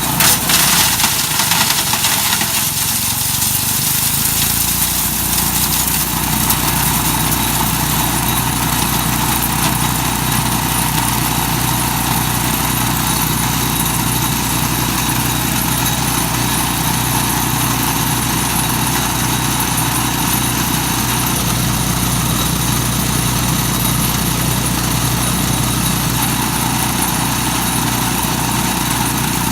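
Mighty Mac wood chipper running steadily while grinding black walnuts, with sharp crackling in the first second or two and then an even drone.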